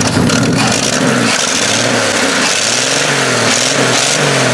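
1968 Chevrolet pickup truck's engine running just after its first start in 15 years, revved up and down a few times in the middle.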